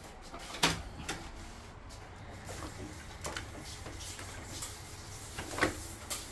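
Scattered plastic clicks and knocks from hands handling the parts of a split air conditioner's indoor unit as it is taken apart, over a low steady hum. The sharpest click comes about half a second in, and another about five and a half seconds in.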